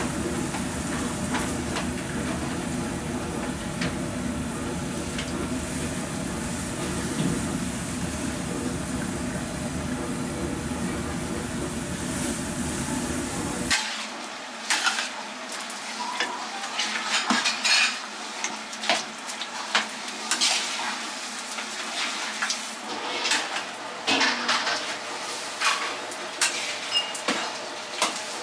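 Ground pork frying in chili oil in a large wok, a steady dense sizzle with a low rumble underneath, while the chili-pork topping for Taiwan ramen cooks. About halfway through, the sound changes sharply to a long metal ladle scraping and knocking against the wok as the meat is stirred, over a lighter sizzle.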